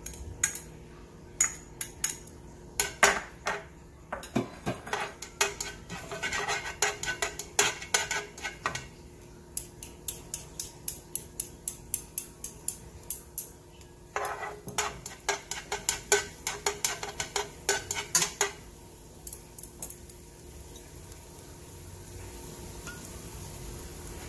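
Chopsticks clicking and scraping against a nonstick frying pan in quick runs of taps as minced garlic is stirred in oil; the tapping stops near the end and a faint hiss slowly rises.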